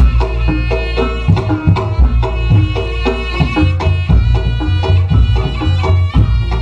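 Reog Ponorogo gamelan accompaniment: kendang drums beating a busy rhythm under a reedy slompret melody, over deep gong and low drum tones.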